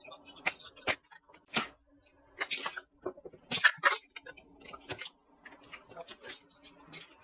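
Irregular sharp clicks and taps with two short scraping rustles, from computer hardware being handled during assembly, over a faint steady low hum.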